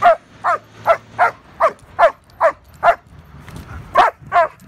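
Young female German Shepherd barking repeatedly and fast, about two to three barks a second, each bark dropping in pitch, with a brief pause about three seconds in. She is barking at a decoy in protection training while straining on her leash.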